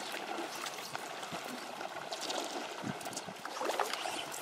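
Water lapping and sloshing against a drifting boat, with a few small knocks.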